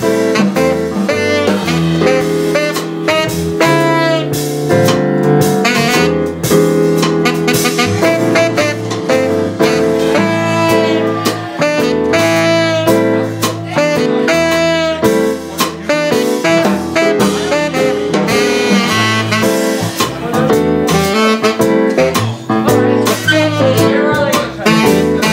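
Live jazz band playing: a tenor saxophone carries the melody over upright bass, drums and keyboard.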